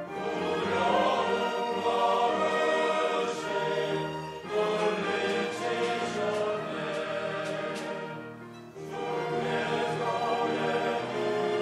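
Church choir singing a sacred anthem in long held phrases, with short breaths between phrases about four and eight and a half seconds in.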